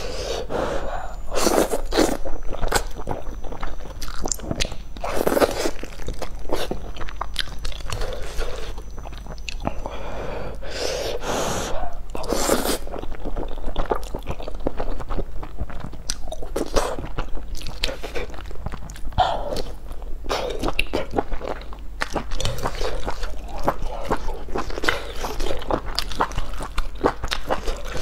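Close-miked eating: slurping instant noodles and chewing with the mouth, giving many irregular short wet mouth noises and longer sucking slurps.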